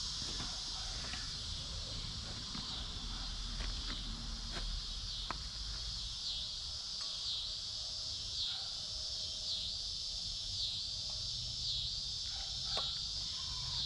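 Outdoor insect chorus: a steady high buzz that pulses about once a second in the second half, with a few faint clicks and taps scattered through.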